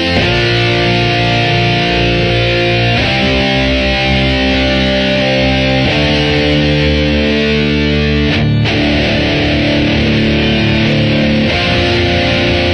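Background music: distorted electric guitar playing long held chords that change about every three seconds.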